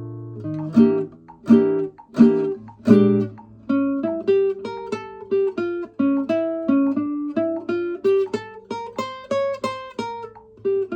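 Kazuo Yairi CY 130 guitar, made in Japan in 1976, played solo: four strummed chords, then from about four seconds in a steady picked single-note melody of two to three notes a second.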